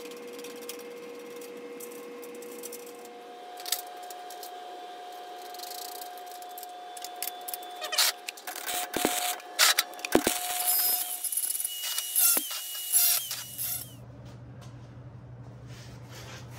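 Metal clinks and clatter of carriage bolts, washers and a galvanized sheet-metal fan housing being handled on a steel welding table while the fan mount is bolted together, busiest from about eight seconds in until about thirteen.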